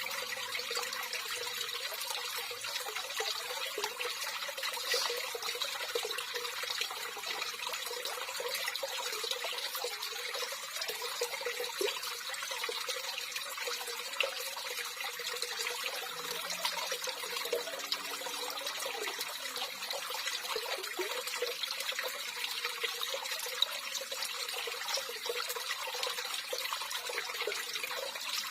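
Running water trickling steadily, a continuous hiss-like flow with scattered small ticks.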